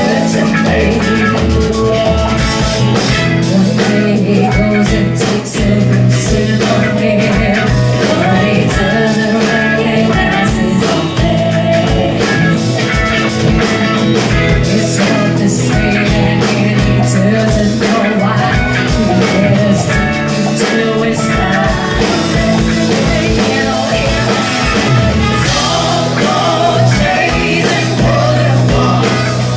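Rock song with singing, guitar and drums.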